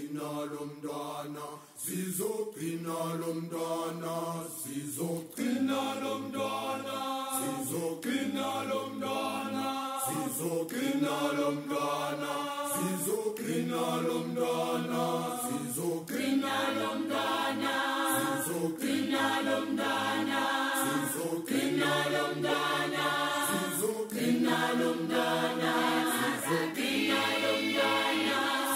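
Background music: a choral chant of sustained voiced chords, each held a couple of seconds before moving to the next.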